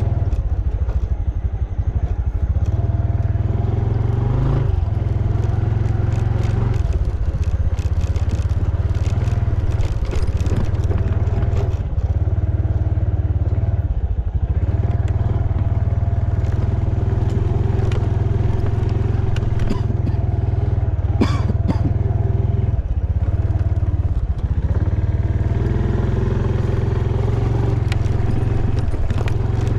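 Small motorcycle being ridden along a bumpy dirt track: a steady low engine drone, with scattered knocks and rattles as the bike goes over rough ground.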